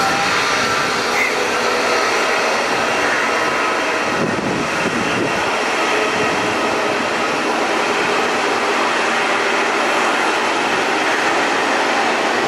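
Jet engines of a twin-engine widebody airliner running at low thrust while it taxis: a steady rushing hiss with a faint whine.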